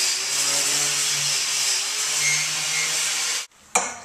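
Power sander running, a loud steady noise with a wavering hum underneath, used to sand rust off the bus's steel floor. It cuts off abruptly about three and a half seconds in, followed by a brief sharp click.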